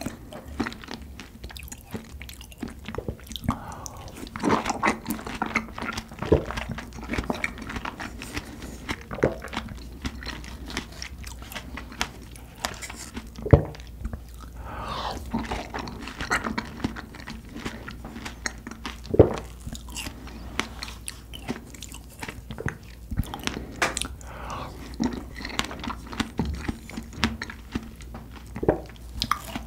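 Close-miked eating of whole strawberries with whipped cream and Nutella: wet biting, chewing and smacking, with many short sharp clicks. The two loudest clicks come about a third and two thirds of the way through.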